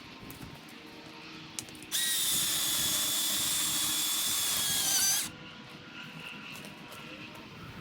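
Milwaukee Fuel battery chainsaw running for about three seconds with a steady high whine from its electric motor and chain. The pitch jumps up just before it cuts off suddenly.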